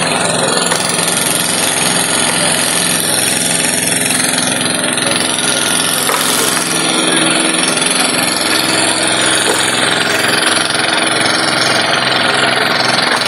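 Construction machinery engine running steadily at an unchanging pitch, under a loud constant rushing noise.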